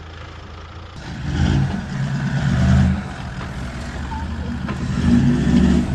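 Four-wheel-drive vehicle's engine working under load as it climbs over sand mounds, revving up in two loud surges, about a second and a half in and again near the end.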